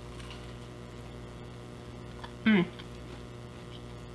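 Steady electrical mains hum, with one short voiced "mm" from a woman with her mouth full, about two and a half seconds in, while she eats a bite of lamb burger.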